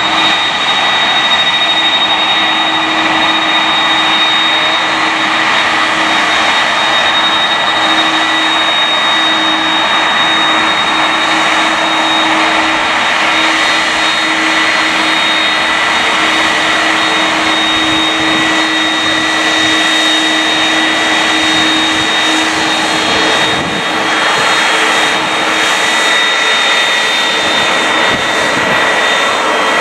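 Airbus A330-300's CF6-80 turbofan engines running at low taxi power: a steady rushing jet noise with two high steady whining tones. A lower hum fades out about halfway through.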